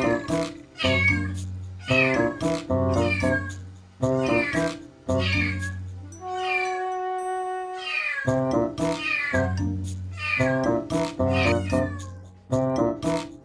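Ragamuffin kitten meowing over and over, a short call falling in pitch about every second, with a pause of about two seconds past the middle. It is crying to be fed and played with.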